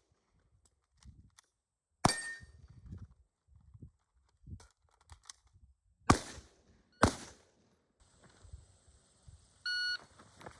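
Three gunshots on a training range: one about two seconds in, then two more about six and seven seconds in, less than a second apart. The first is followed by a brief metallic ring from a steel target. A short electronic beep sounds near the end.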